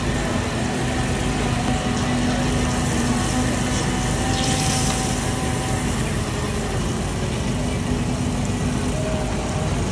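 Small portable generator engine running steadily, with a brief hiss from the griddle about four and a half seconds in as the skewers are turned with tongs.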